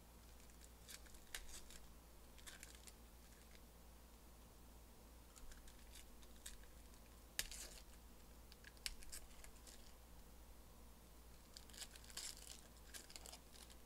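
Faint crinkling and tearing of foil trading-card pack wrappers as packs are opened and the cards handled, in short scattered crackles with one sharper snap about seven seconds in.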